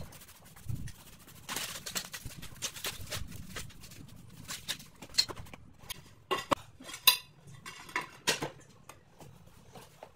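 Hand brush sweeping grit off a bare concrete floor into a dustpan, then sharp clinks and knocks of glazed floor tiles being picked up and set down against each other.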